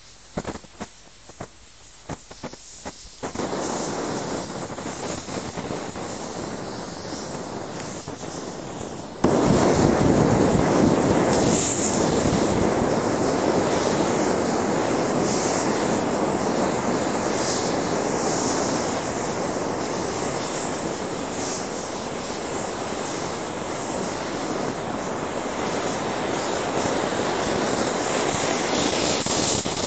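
Butane lighters burning with their valves unable to shut off. A few small pops and crackles come first; about three seconds in, a hiss of escaping gas starts, and about nine seconds in it jumps to a loud, steady rushing hiss that carries on.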